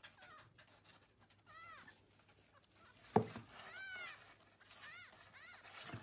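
Newborn kitten mewing: about four short, high-pitched cries that rise and fall. Scratching and rustling on cardboard, with one sharp knock about three seconds in.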